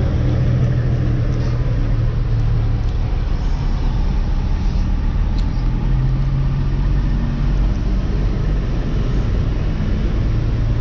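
Semi truck's diesel engine running at low speed, heard from inside the cab: a steady low rumble, with a few faint clicks.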